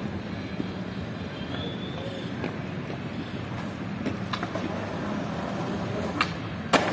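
Steady outdoor background rumble with a low hum, broken by a few short sharp clicks, the loudest one near the end.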